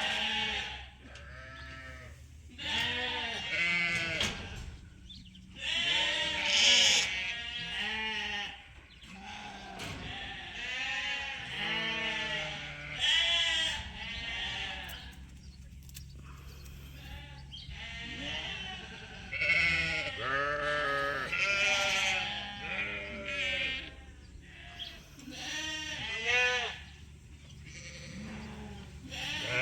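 A flock of sheep bleating, many calls overlapping and coming in waves, over a faint steady low hum.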